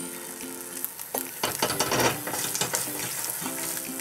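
An egg frying in coconut oil in a carbon steel pan: a steady sizzle with scattered crackling pops.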